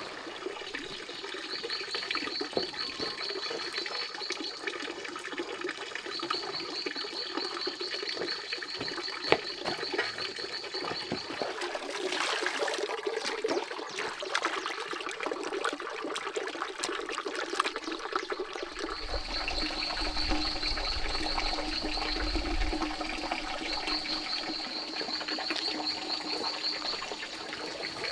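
Water splashing and trickling, with small clicks throughout. Over it, a high pulsing trill repeats in stretches of a few seconds.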